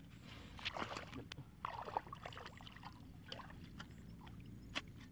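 A metal pipe jabbed and scraped into damp soil to dig a hole, giving scattered short scrapes and clicks, with two longer scraping stretches in the first two seconds, over a low steady rumble.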